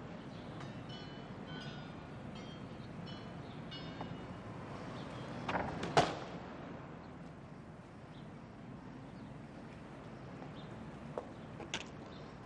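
A person landing with a thud on paved ground after jumping down from a height, about six seconds in, against a steady outdoor background.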